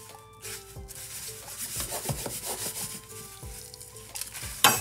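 Raw chicken breast being pressed and turned by hand in dry panko breadcrumbs in a stainless steel bowl: a crunchy rustling and scratching of the crumbs. A single sharp knock near the end.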